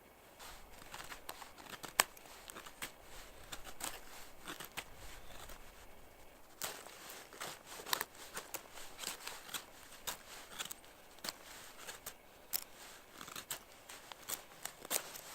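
Victorinox Super Tinker pocketknife blade carving a feather stick: irregular short scrapes as shavings are cut from the wood, with one sharp crack about two seconds in.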